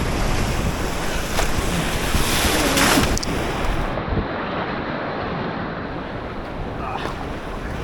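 Rushing river water around a kayak: a steady noisy rush that swells briefly about three seconds in, with wind buffeting the microphone.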